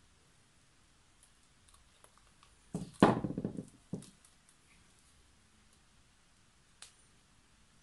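Stretched canvas being tilted on a plastic-covered table: a short cluster of knocks and rustling about three seconds in, then a single knock a second later and a faint click near the end.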